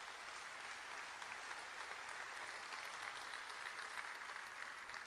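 Audience applauding: an even patter of many clapping hands that begins to fade near the end.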